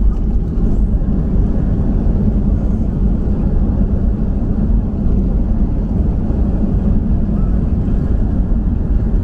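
Steady low rumble inside a Boeing 737-800's cabin during the landing roll, heard from a window seat over the wing with the ground spoilers deployed.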